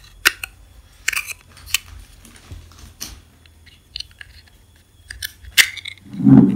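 Steel 8 mm linear ball bearings being pressed into the snap-in holders of a 3D-printed plastic carriage plate: a scattered series of sharp clicks and short plastic scrapes, the loudest clicks near the end.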